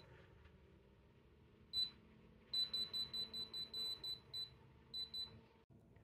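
Control-panel beeps from a Bodega TW35 dual-zone car fridge as its touch buttons are pressed to set the compartment temperatures. It gives a single beep, then a quick run of about nine, then two more near the end.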